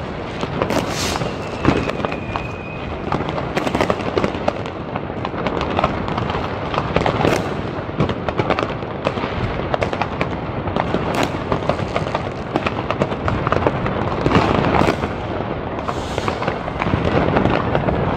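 Fireworks and firecrackers going off all around at once: a continuous barrage of bangs and crackling with no pause, and a brief whistle about two seconds in.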